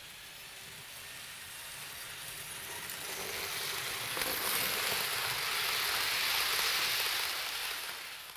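H0-scale model train, an electric locomotive hauling coaches, running on the layout's track: a hissing rumble of wheels and motor that grows louder as it approaches and passes close by, then fades near the end.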